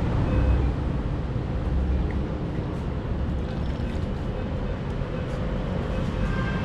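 Road traffic: a steady low rumble of passing vehicles.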